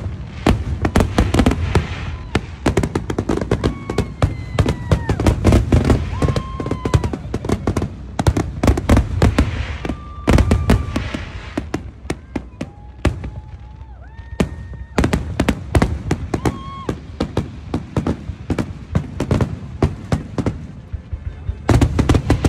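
Aerial fireworks display: dense, rapid bangs and crackling with heavy deep booms from the shells bursting. Several brief high whistles, each held for about a second, sound among the bursts.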